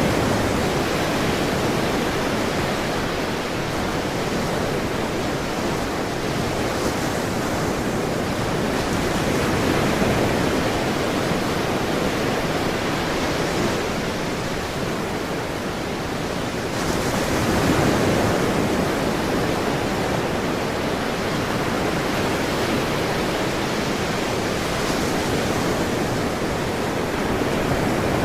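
Ocean surf: a continuous wash of waves with slow, gentle rises and falls in loudness every several seconds.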